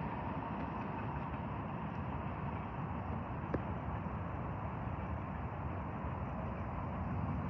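Steady low rumble of distant vehicles, with one faint click about three and a half seconds in.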